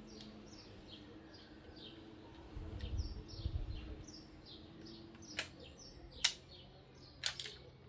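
Sharp plastic clicks and a dull handling rumble from a LEGO-brick model of a Winchester 1887 lever-action shotgun being loaded with a shell, four clicks in the second half. Behind them a small bird chirps over and over, a short falling chirp about twice a second.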